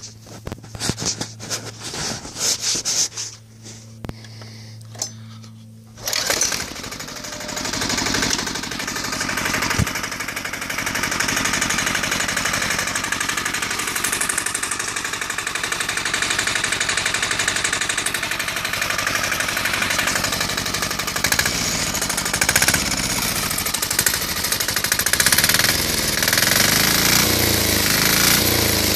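Yanmar single-cylinder air-cooled diesel engine on a go-kart. A few clicks and a low steady hum come first; then, about six seconds in, the sound jumps to the engine running with a loud, steady diesel clatter.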